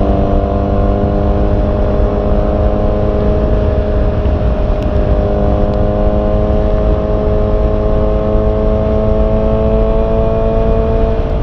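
Honda CB650R's inline-four engine pulling steadily under throttle, its note climbing slowly and evenly, then dropping right at the end as the rider eases off. A heavy low rumble runs underneath.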